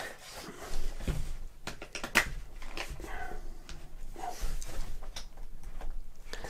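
A tablet being pressed into a folio case: several sharp clicks and knocks as it seats into the case, with soft handling rustle between them.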